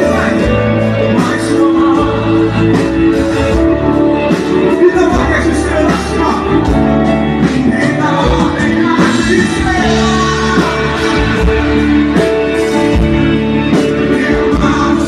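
Live gospel band music played loud through a stage PA, with a male vocalist singing into a microphone over electric guitar.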